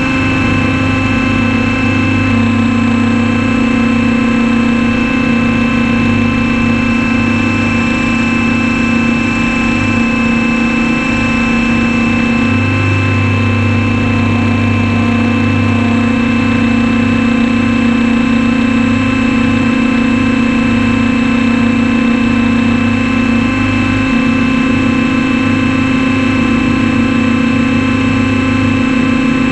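Onboard sound of a radio-controlled helicopter in flight: its motor and rotor make a steady, loud whine with several tones held at an even pitch. A lower hum beneath it fades and comes back a couple of times.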